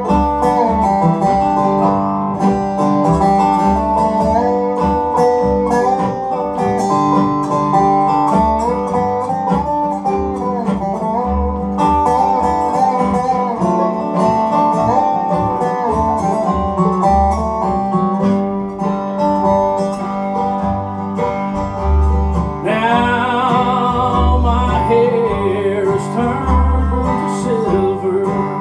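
Bluegrass band playing an instrumental passage: a resonator guitar (dobro) plays sliding lead notes over strummed acoustic guitar and upright bass notes. Near the end a new wavering lead line comes in.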